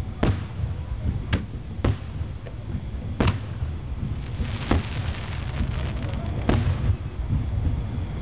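Aerial firework shells bursting: about six sharp bangs at uneven intervals, with a crackling spray of sparks around the middle, over a steady low rumble.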